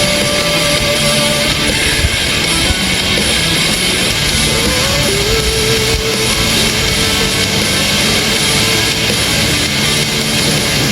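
Rock music with distorted electric guitar and drums.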